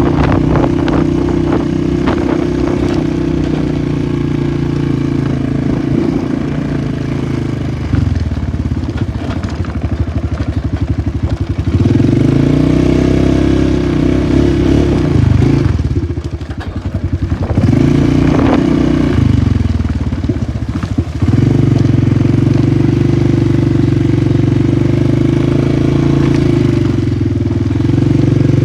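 Polaris 450 ATV engine running under throttle while riding. The engine note drops as the throttle is let off about eight seconds in, picks back up, and dips twice more in the middle before holding steady again.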